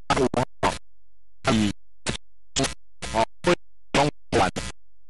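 Short fragments of a person's voice, about a dozen in a few seconds, each cut off abruptly into silence, so the speech is chopped up and not intelligible.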